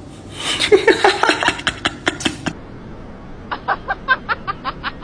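A person laughing in quick bursts, then a rapid run of about a dozen short, evenly spaced chirps.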